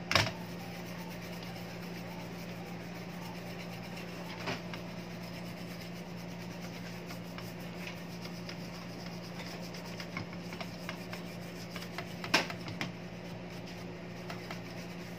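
Toothbrush bristles scrubbing the surface of a DVR circuit board: steady dry brushing over a constant low hum. A few short clicks, the sharpest about twelve seconds in.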